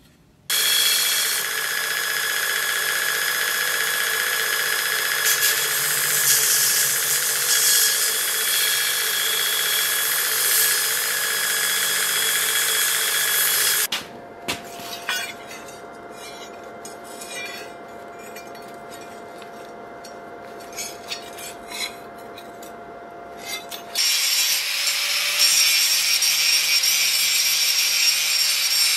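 Power tool cutting or grinding under load, in loud, steady stretches with a whining tone. About halfway through it gives way abruptly to a quieter steady hum with a few clicks, then the loud cutting returns abruptly.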